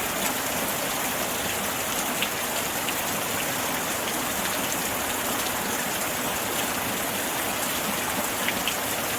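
Steady rushing sound of falling or running water, with a few faint high ticks.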